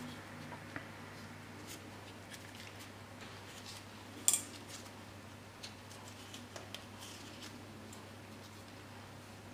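Small plastic clicks and taps as the parts of a B6 VW Passat key fob case and its circuit board are handled and fitted together. One sharp click about four seconds in is the loudest, with a few lighter ticks a couple of seconds later, over a low steady hum.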